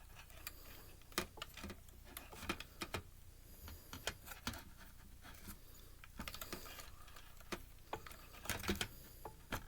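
Irregular light clicks and taps, several a second, of a screwdriver and plastic casing parts being handled while a Blu-ray player is taken apart, probing a hole for a screw inside.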